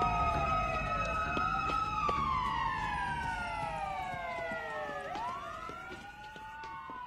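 Several emergency-vehicle sirens wail at once, their pitches sweeping slowly up and down and crossing over one another, growing gradually fainter.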